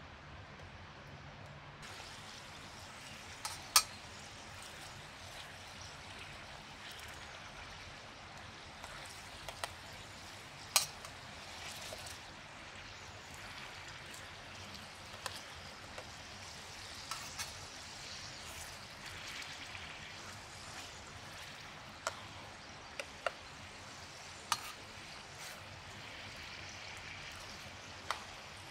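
Oil sizzling steadily in a pan as kebab patties and tomato slices fry over a campfire. Sharp metal clinks come now and then as a metal spatula knocks against the pan and plate while patties are lifted out.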